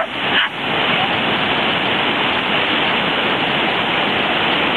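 Ocean surf washing in on a beach: a steady, loud rush of breaking waves, briefly dipping about half a second in.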